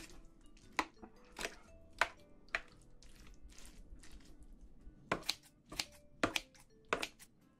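A spoon clinking and scraping against the tray while rice is mashed and stirred into thick spicy seafood sauce. Four sharp clicks come about every half second, then a pause, then another run of four clicks near the end.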